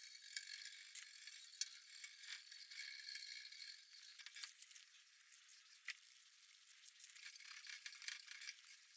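Faint, thin scrubbing and scratching with scattered small clicks: a wire brush and rag working the rusty lathe chip pan. One sharp click about a second and a half in.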